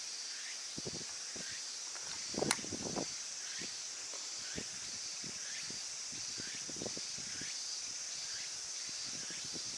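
Outdoor ambience of insects droning steadily in a high, even hiss, with faint short chirps repeating about once or twice a second. A few soft knocks and clicks come through, the loudest about two and a half seconds in.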